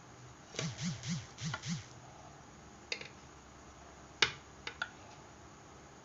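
A steel spoon scraping against an opened tin of condensed milk: five quick scrapes in the first two seconds, then a few sharp metal clinks, the loudest about four seconds in.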